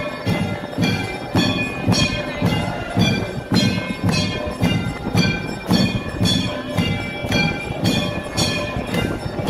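Temple bells ringing during aarti, struck in a steady rhythm of about two strokes a second, with a low beat under each stroke.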